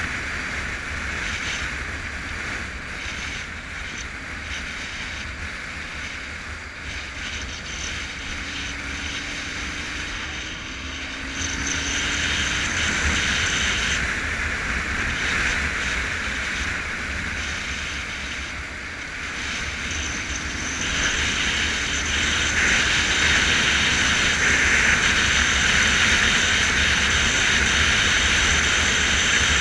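Wind rushing over a camera on a moving motorcycle, a steady roar with the bike's engine low underneath. It grows louder about a third of the way in and again about two-thirds of the way through.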